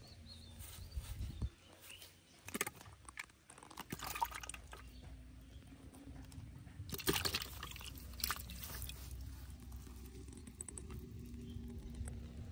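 A small freshly caught fish is unhooked and dropped into a plastic bucket with a little water in it. There are scattered short handling knocks and rustles, and the loudest splashing comes about seven seconds in.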